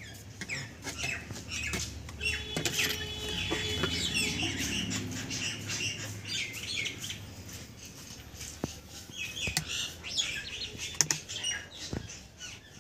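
Small birds chirping repeatedly in the background, over light clicks of thin aluminium wire being bent and twisted by hand. A low hum swells and fades during the first half.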